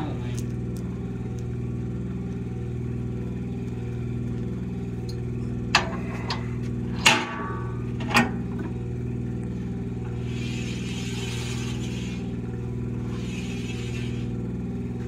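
A large circular sawmill blade is handled on its bench over a steady machine hum. There are a few sharp metal knocks, the loudest about seven seconds in with a brief ringing clang from the steel plate. Two short rushing hisses come in the second half.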